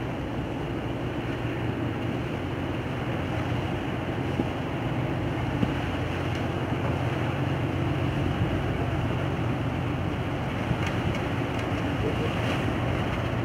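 Diesel engine of a large purse-seine fishing vessel under way, a steady low drone that grows slightly louder as the ship passes close by.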